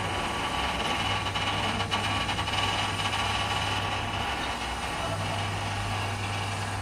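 Crane winch motor running steadily while hoisting a large stone boulder, with a low hum that drops out for about a second partway through.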